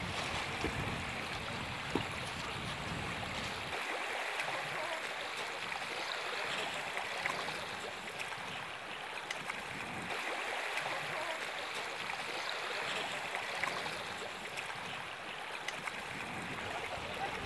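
Shallow lake water splashing and lapping as a hooked fish thrashes at a wading angler's legs, with small waves washing in; an extra low rumble in the first few seconds.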